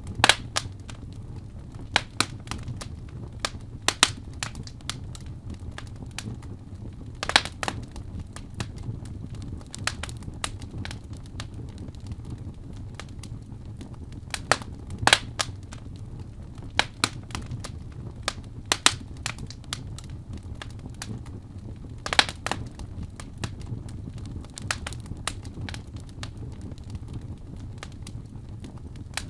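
Fire burning in a fireplace, crackling with irregular sharp pops over a steady low rumble.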